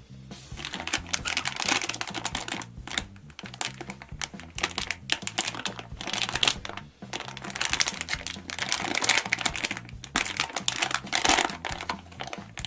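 Crinkling, crackling handling noises in dense bursts with short pauses, over quiet background music with a bass line.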